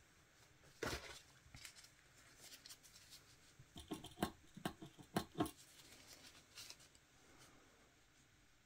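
Faint handling noises as hands with long acrylic nails move over a paper towel: soft rustles and small sharp clicks, one about a second in and a quick run of them from about four to five and a half seconds in.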